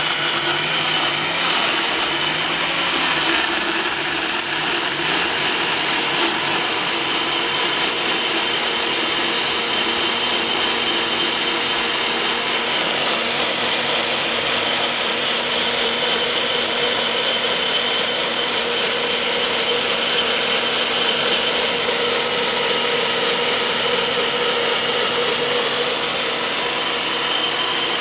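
NutriBullet 900 Series blender's 900-watt motor running at full speed, blending fruit into a smoothie. The pitch wavers for the first few seconds while the chunks are still being broken up, then settles into a steady whine as the mix turns smooth.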